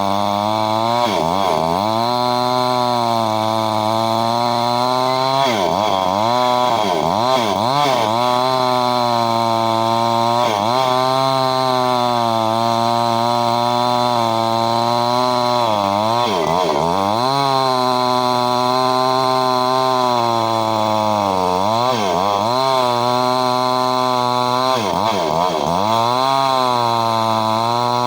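A Stihl chainsaw's two-stroke engine running at high revs, with repeated brief dips in engine speed that quickly climb back up.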